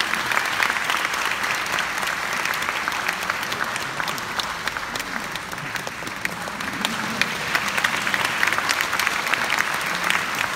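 Audience applauding, many hands clapping steadily and evenly throughout.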